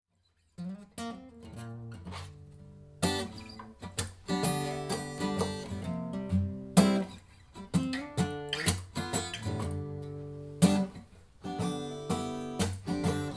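Background music of an acoustic guitar, with plucked notes and strummed chords, starting about half a second in.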